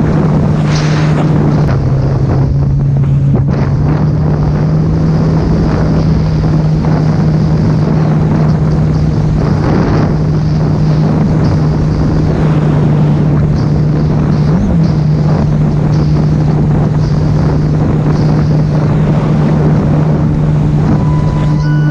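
Sea-Doo personal watercraft's supercharged three-cylinder engine running at a steady pitch while under way, with wind buffeting the microphone and water rushing past the hull.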